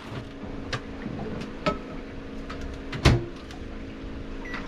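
Microwave oven running with a steady hum, with several knocks and clicks from galley cupboards or doors, the loudest about three seconds in, and a short high beep near the end.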